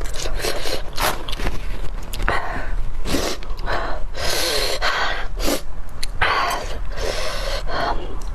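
A person eating close to the microphone, with a string of short, noisy slurps and sharp breaths, roughly one every half second to second, as bone marrow is eaten.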